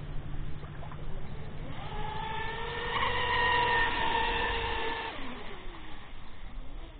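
Minicat 820 EP RC catamaran running fast, its twin Goolrc 2968 3400 kV brushless motors giving a high electric whine. The whine swells to its loudest about halfway through and stops suddenly about five seconds in.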